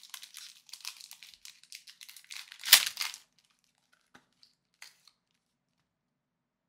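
Foil Pokémon booster pack wrapper crinkling as it is handled, with one loud tearing rip about two and a half seconds in as the pack is torn open. A few faint taps follow, then near silence.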